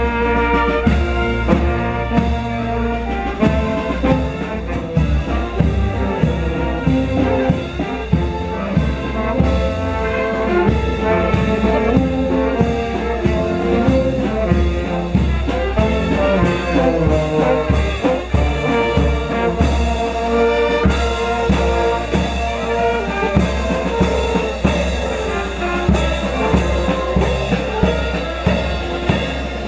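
Brass band music: trumpets and trombones playing a tune over a steady drum beat.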